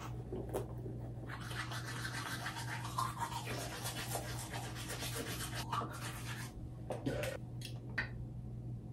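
Hands rubbing together, a fast steady scrubbing of skin on skin from about a second in until past six seconds, then a few short separate rubs.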